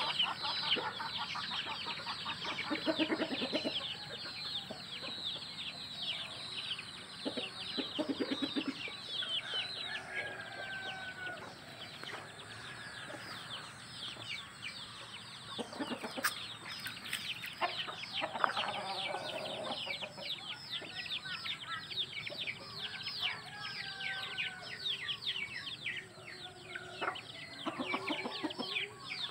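A brood of chicks peeping without pause, many short falling high peeps overlapping, with hens clucking now and then among them.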